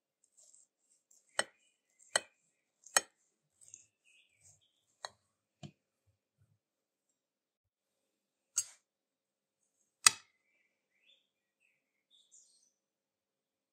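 Knife blade clicking against a plate while slicing a chocolate cake: a series of short sharp clinks, three in quick succession in the first few seconds, then two lighter ones, then two louder ones.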